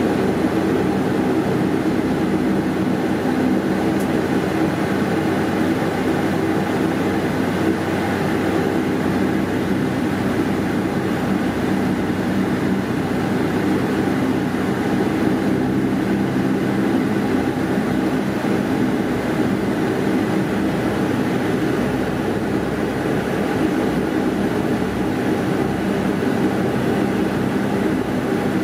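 Cabin noise of a Bombardier Dash 8 Q400 taxiing, heard from a window seat beside the nacelle: the steady drone of its Pratt & Whitney PW150A turboprop engines and propellers, a stack of even low hums over a rushing hiss.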